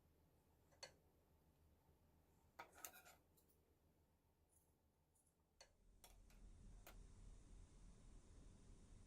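Near silence, broken by a few faint clicks and taps; a faint low hum comes in about halfway through.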